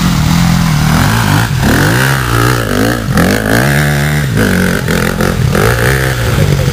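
Dirt bike engine revving hard under load, its pitch rising and dropping several times in quick succession.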